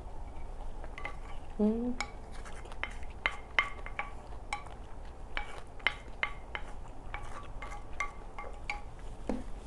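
Wooden spoon stirring thick cream-sauce rice cakes in a large ceramic bowl: irregular sharp clinks against the bowl, about two a second, each ringing briefly. A short rising hum of a voice about two seconds in.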